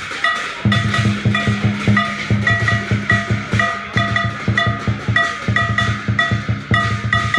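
Dragon dance percussion: a drum beating a fast, steady rhythm of several strikes a second, with ringing metal clangs sounding along with the beats.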